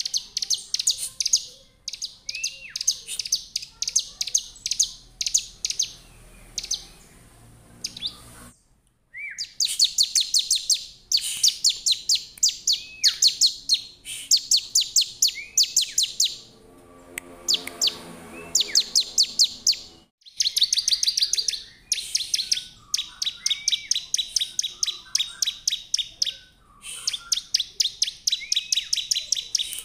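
A bar-winged prinia (ciblek) in full song: long trains of rapid, sharp high chirps, about ten a second, in phrases a few seconds long, with short upward-curling notes between them. The song breaks off twice.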